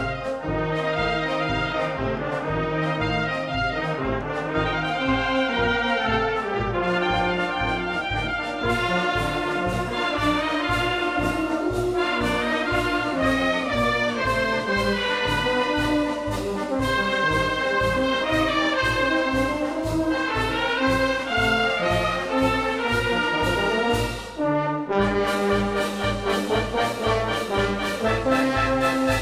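Maltese band club wind band playing a marċ brijuż, a brisk festa march: brass melody over a steady drum beat. Near the end the band breaks off briefly and comes back in.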